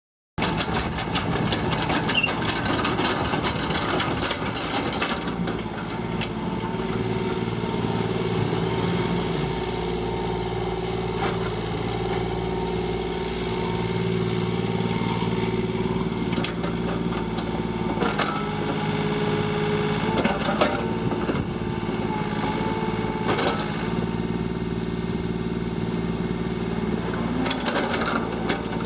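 Komatsu PC10-7 mini excavator's diesel engine running steadily, with a few sharp metallic clanks and knocks at intervals.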